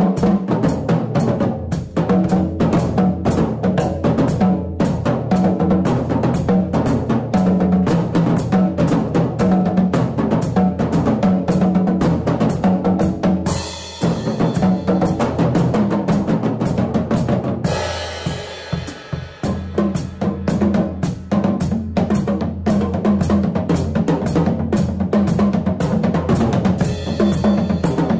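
Acoustic drum kit played in a solo: a repeating ostinato bass drum pattern under snare and tom strokes in a baião-style groove. Cymbal crashes ring out about halfway through and again near the end, and the playing briefly thins and drops in level a little after the middle.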